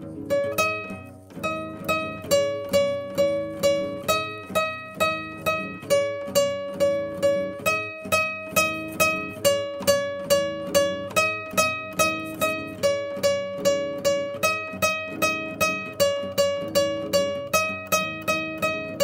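Instrumental music: a plucked string instrument picks a steady, even run of notes, about two to three a second, each ringing briefly, over a lower sustained accompaniment.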